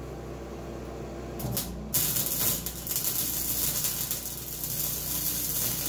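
Electric arc welding on a steel engine-mount bracket: a brief strike of the arc, then a steady crackling hiss that starts abruptly about two seconds in and keeps going.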